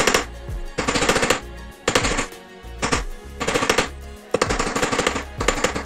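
Steel hammer striking a zigzag steel wire laid on the flat anvil face of a bench vise, in quick bursts of several blows about once a second. The wire is being bent into a slight curve to match the plastic panel it will reinforce.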